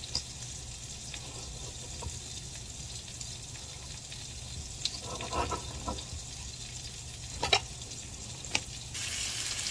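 Chicken and butter sizzling steadily in a frying pan, with a few sharp knife taps on a wooden cutting board as steamed Brussels sprouts are halved. Near the end the sizzle jumps louder.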